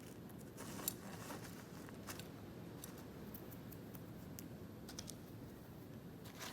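Faint handling noise: a few light clicks and rustles over a low steady hum, the sharpest click about a second in.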